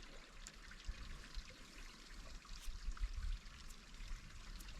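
Faint, steady rush like running water, with a few light ticks scattered through it.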